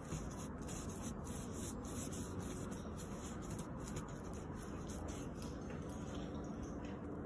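A brush dabbing resin into fiberglass mat: soft, repeated scratching strokes of the bristles on the wet glass fibres.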